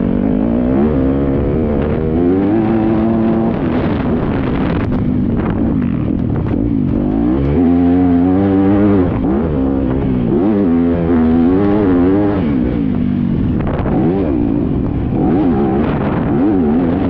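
Dirt bike engine revving up and dropping back again and again as the rider accelerates, shifts and rolls off through the track, heard from the rider's onboard camera.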